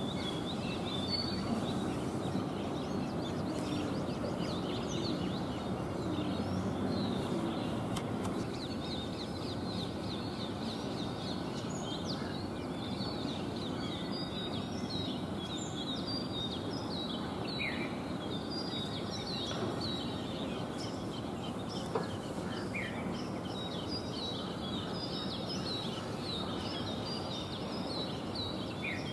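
Small birds chirping: rapid series of short, high notes that thicken from about eight seconds in, over a steady low background noise, with a single sharp tick past the middle.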